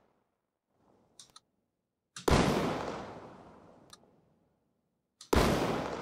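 Designed explosion sound effect, built from a firecracker recording with impulse-response reverb, played back twice through a waveshaper distortion on the master bus. Each playback is a sudden bang with a long tail that dies away over about two seconds, the first about two seconds in and the second about five seconds in.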